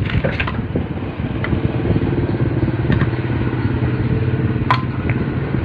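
A steady, engine-like mechanical hum that grows a little louder after about a second, with a few sharp clicks over it, one louder click near the end.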